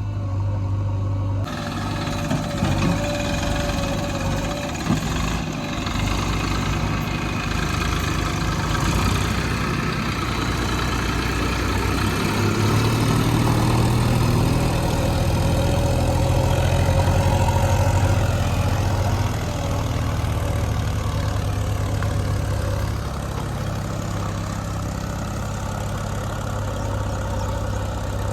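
Heavy diesel engine running steadily, getting louder for several seconds in the middle. A few short knocks sound about three and five seconds in.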